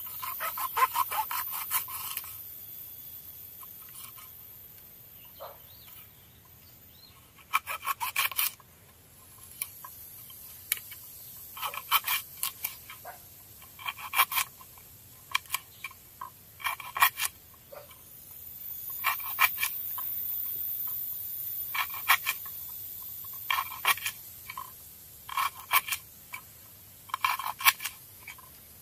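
Kitchen knife chopping on a wooden cutting board: short bursts of rapid taps, several a second, repeated about a dozen times with pauses in between.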